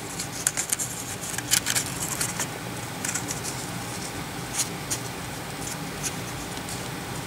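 A thin abrasive belt being fitted by hand onto a Work Sharp Knife and Tool Sharpener, with its motor off: light scratching and scattered small clicks, several in quick clusters, as the belt and housing are handled.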